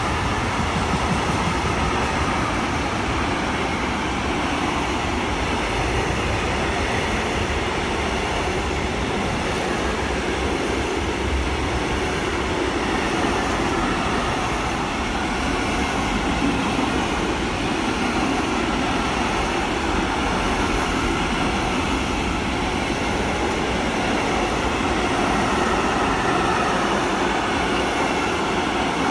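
Freight train wagons carrying containers and tank containers rolling past close by, with a steady rumble of wheels on the rails.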